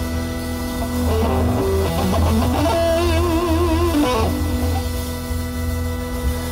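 Amplified band music: an electric guitar plays a melody of held notes over a steady bass line, with a wavering vibrato on a sustained note about three seconds in.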